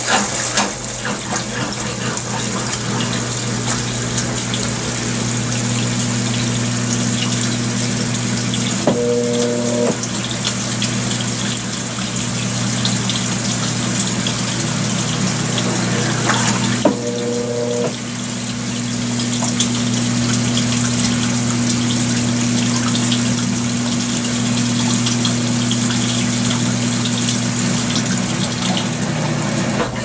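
Consul 16 kg (CWL16) top-load washing machine draining: the drain pump runs with a steady low hum while the wash water rushes out of the tub. A short, higher hum cuts in twice, about nine and seventeen seconds in.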